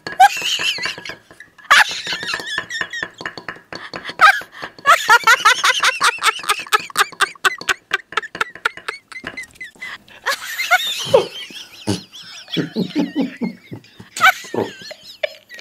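A woman and a man laughing in bouts of rapid pulses, with short gaps between.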